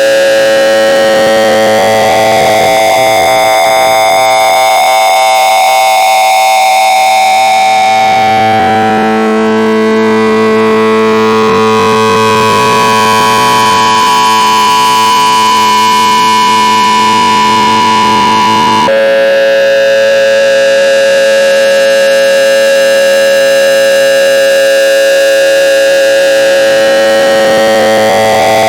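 Loud, harsh electronic tone of several pitches held together, changing abruptly to a different set of pitches about eight seconds in and again about nineteen seconds in.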